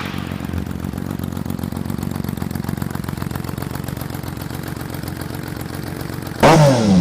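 Honda CBX 1050's inline-six engine idling steadily, then blipped hard near the end, its pitch rising sharply and falling back.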